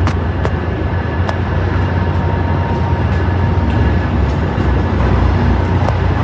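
Steady low rumble of idling diesel commuter trains in an enclosed train shed, with a few sharp ticks from footsteps on stairs.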